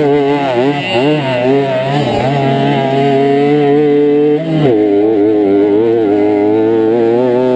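Kreidler Flory 50 cc two-stroke moped engine running hard under race throttle. Its pitch wavers at first, then holds steady, dips briefly about four and a half seconds in and climbs back.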